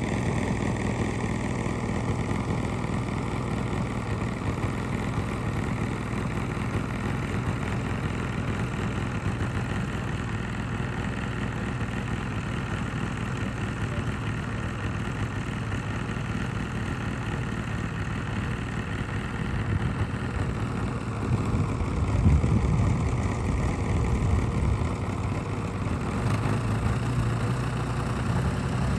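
An engine running steadily at an even pitch, with a low hum; it swells louder for a few seconds about three-quarters of the way through.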